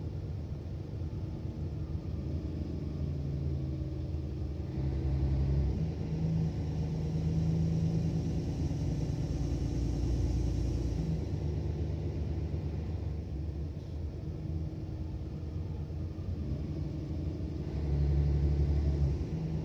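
Mercedes-Benz Citaro O530 city bus's diesel engine and drivetrain heard from inside the passenger cabin, running under way with a low rumble. It pulls harder from about five seconds in, drops back suddenly about eleven seconds in, and surges again near the end.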